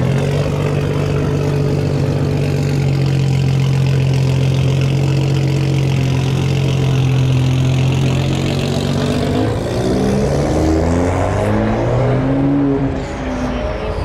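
V8 engine of a 1960s Chevrolet pickup running steadily for about nine seconds, then revved up and down several times.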